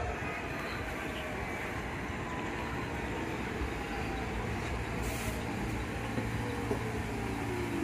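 New York City subway train slowing as it pulls into the station: a steady rumble of wheels on rails with a faint electric motor whine that falls slowly in pitch as it decelerates.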